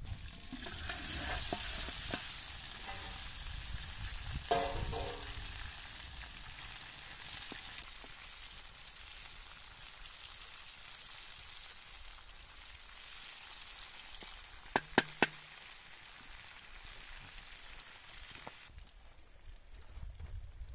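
Meat frying in a wide metal pot over a wood fire, a steady sizzle that stops near the end. Three sharp taps come in quick succession about three-quarters of the way through.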